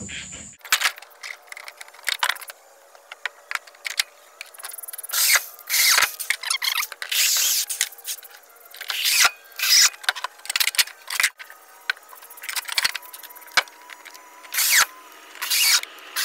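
Corded power drill driving exterior decking screws into wooden deck boards in several short bursts, with clicks and knocks of the boards and spacers being handled in between.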